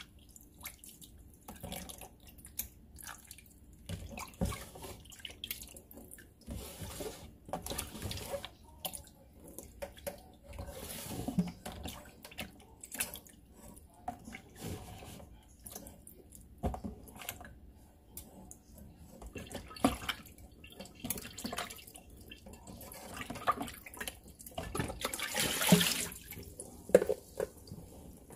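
Wet mushroom pieces being lifted by hand out of a tub of water into a metal mesh strainer in a sink: irregular splashing and dripping, with a louder rush of water near the end.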